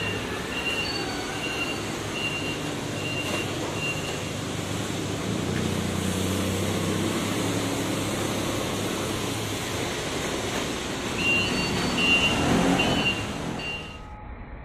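Forklift engine running under load, with its warning beeper sounding a string of short, evenly spaced high beeps, about two a second, for the first few seconds and again about eleven seconds in. The sound drops off abruptly near the end.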